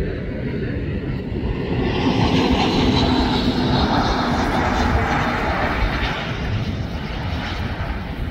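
Jet engines of a twin-engine Boeing freighter at taxi power: a steady jet rumble with a high whine, swelling about two seconds in and easing off again after about five seconds.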